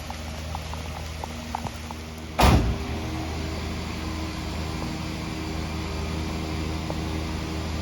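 Vehicle engine running steadily at idle, with one sudden loud knock about two and a half seconds in.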